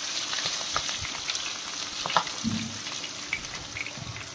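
Whole spices, ginger and green chillies sizzling and crackling in hot oil in a kadhai as a spatula stirs them, with a few knocks of the spatula against the pan about two seconds in.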